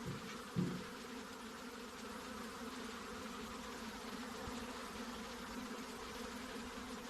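Many honey bees buzzing together in a steady, unbroken drone, with a short low bump about half a second in.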